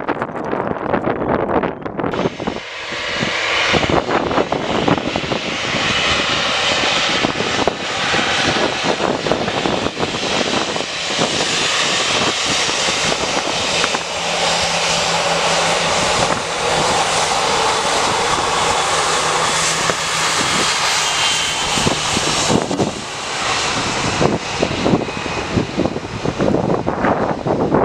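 Jet airliner's engines passing close by: a broad rushing noise with a faint whine that comes up about two seconds in, holds for about twenty seconds and eases off near the end, over wind buffeting the microphone.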